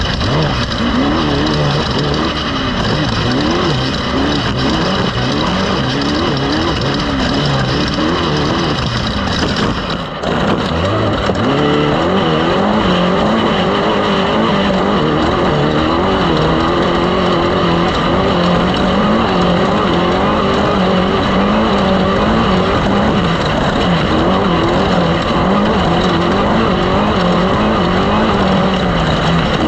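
Loud racing engine running continuously, its pitch wavering up and down, with a brief dip about ten seconds in.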